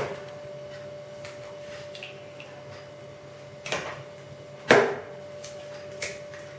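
Eggs cracked against the rim of a ceramic mixing bowl: two sharp taps about a second apart near the middle, the second louder, over a faint steady hum.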